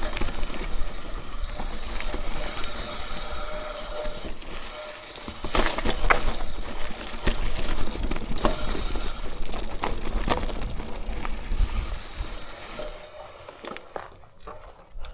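Mountain bike ridden over a rough, rooty trail: tyres rumbling with the chain and frame rattling and sharp knocks as it hits roots, growing quieter and sparser near the end as the bike slows.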